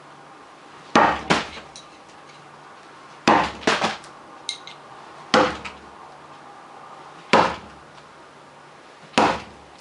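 Bo-shuriken throwing spikes striking a target, five sharp hits about two seconds apart, some followed by a smaller knock. The spikes stick hard.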